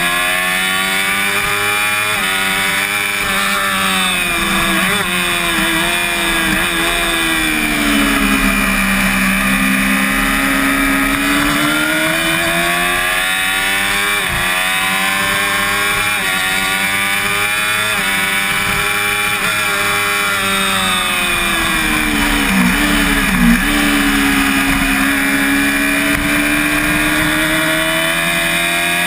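Onboard sound of a Yamaha YZF-R6 (5EB) four-cylinder race engine under hard use, with wind rush. The engine pitch climbs through the gears with short breaks at each shift. It sinks twice as the bike brakes and downshifts for corners, about a third of the way in and again about three quarters in, then climbs again.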